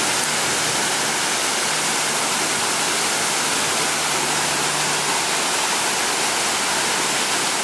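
Steady, loud rushing of a waterfall: dense, even water noise with no break.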